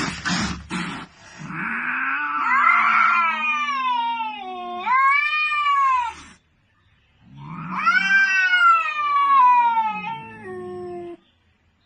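Cat caterwauling: two long, drawn-out yowls that waver and bend up and down in pitch, with a short pause between them.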